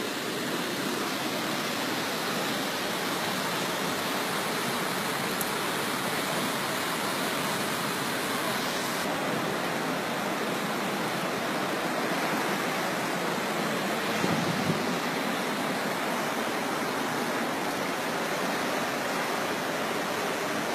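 Flash-flood water rushing in a fast torrent, a steady roar of churning water.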